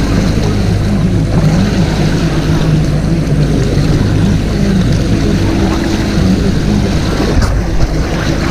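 Suzuki outboard motor of a fishing boat running steadily, a low hum that wavers a little in pitch, over the rush of water along the hull.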